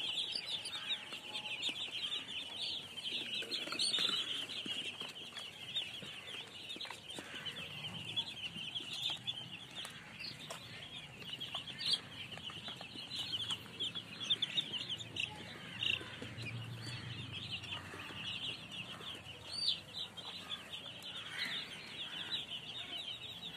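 A crowd of baby chicks peeping all at once: a dense, continuous chorus of short high cheeps overlapping one another.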